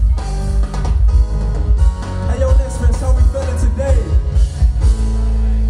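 Loud live music over a PA with heavy pulsing bass. Near the end the beat drops out, leaving a steady held bass chord.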